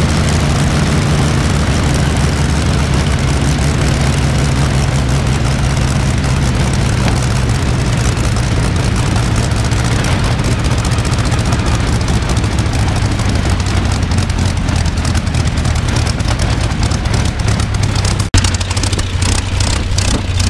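Rolls-Royce Griffon 58 36.7-litre V12 aero engine running steadily on a test stand, driving its propeller. A brief break about 18 seconds in, then the same engine carries on.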